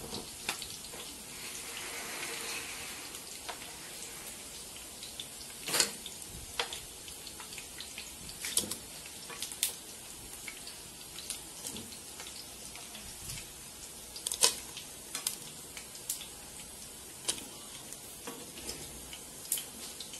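Red pepper-and-onion sauce cooking in a pot with a steady low hiss, broken by scattered sharp clicks and knocks as pieces of browned turkey are put into it.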